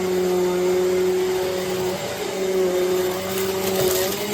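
Eureka AirSpeed NEU10AE5 bagless upright vacuum cleaner running steadily, a constant motor hum with a rushing hiss of air. There is a brief crackle about three seconds in.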